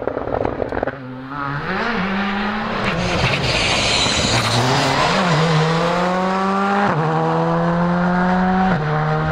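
Skoda Fabia R5 rally car's turbocharged four-cylinder engine at full throttle, its note climbing in pitch through the gears with two quick upshifts late on. A hiss of tyres on loose gravel comes in around three to four seconds in.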